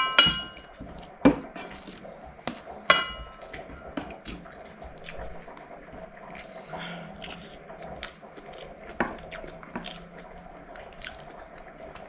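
Someone eating with the fingers from metal food containers: scattered light clicks and taps of hands and food against the containers, with soft chewing and mouth sounds. Two clinks of metal ring on briefly, one at the very start and one about three seconds in.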